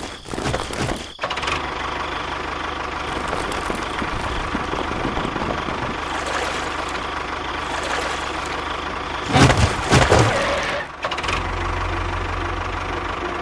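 Small engine running steadily at idle, with a short louder burst about nine to ten seconds in, then a deeper, evenly pulsing chug near the end.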